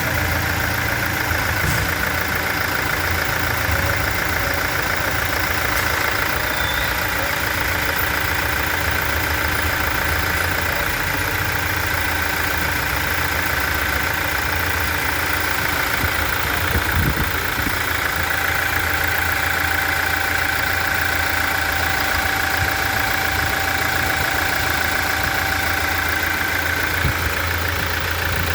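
Toyota 1GD 2.8-litre four-cylinder turbodiesel idling steadily, with one brief thump partway through.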